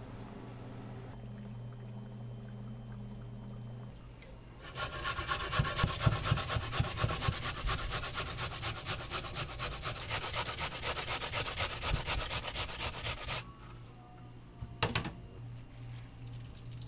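Raw potato rubbed fast on a flat metal hand grater over a steel bowl: a quick, even rasping rhythm that starts about five seconds in and runs for about eight seconds. Before it there is only a steady low hum. Near the end comes a single sharp clank.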